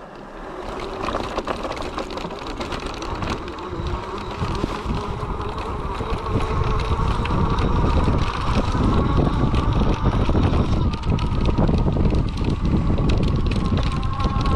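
Electric drive motor of a wheelchair's power front attachment whining and rising in pitch as it accelerates from a standstill, with the rumble of fat tyres on a dirt track growing louder as speed builds.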